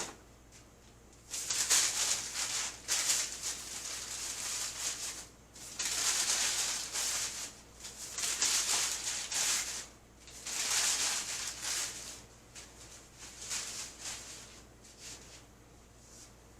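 Rustling handling noise in repeated bursts of a second or two each, with short pauses between.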